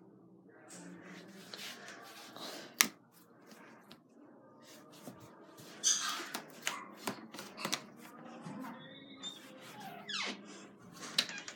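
Handling sounds in a small room: light rustling with scattered clicks and small knocks, a single sharp click about three seconds in and a run of clicks past the middle.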